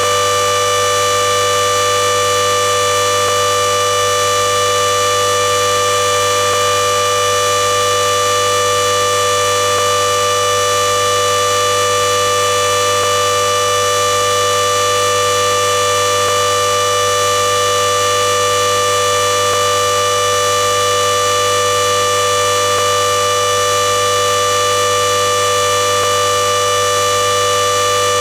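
Klexen DS8 washing machine drum spinning at full speed on its 4000 rpm spin cycle, giving a loud, steady whine of several fixed tones that holds unchanged throughout.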